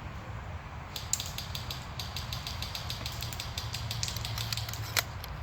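A quick, irregular run of sharp clicks, about five a second for some four seconds, ending in one louder snap, over a steady low rumble.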